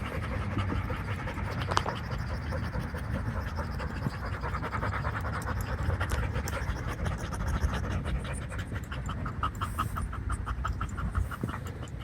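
A dog panting quickly and evenly, about four breaths a second, plainest near the end, over a steady low rumble.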